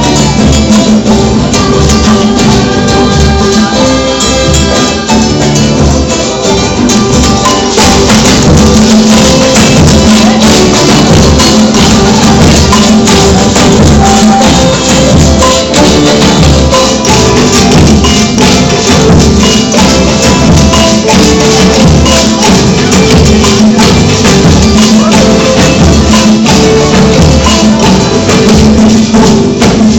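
Music with steady rhythmic percussion, including a tambourine-like jingle; the sound grows fuller about eight seconds in.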